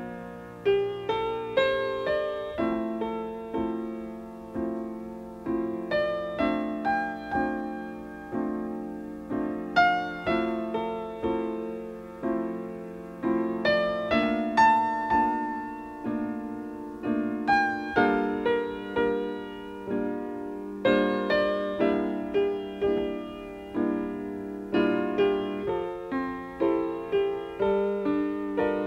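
Solo piano playing a slow tune, its notes and chords struck and left to ring and fade.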